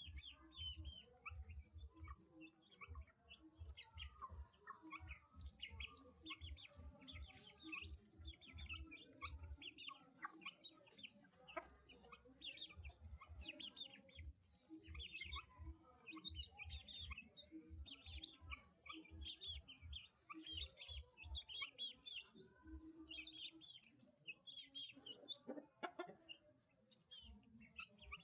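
Chicks peeping continuously, many short high calls overlapping, with some low chicken clucking and irregular low rumbling bumps underneath.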